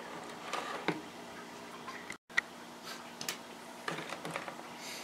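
Light, irregular clicks and small knocks of plastic 4WD axle actuators and wire terminals being handled on a wooden workbench, as test leads are moved from one actuator to the other. The sound drops out for a split second about two seconds in.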